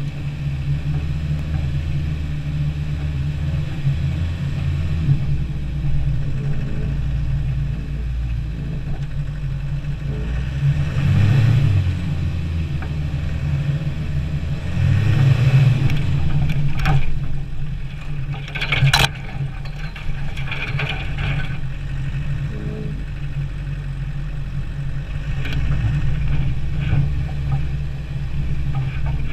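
Land Rover Defender 90's engine running steadily as it drives a snowy trail, revving up twice about a third and halfway through. A few sharp knocks come soon after the second rev.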